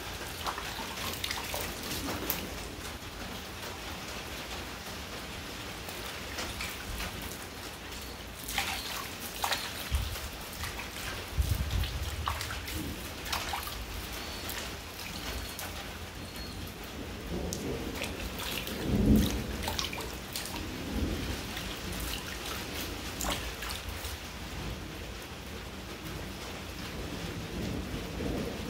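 Steady rain falling, with many sharp drops hitting nearby surfaces. A few low rumbles come through about ten to twelve seconds in and again near nineteen seconds.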